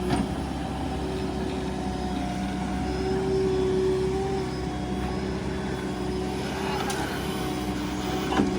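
Heavy diesel engine running steadily, its pitch rising a little about three seconds in, with a sharp knock near the start and another near the end.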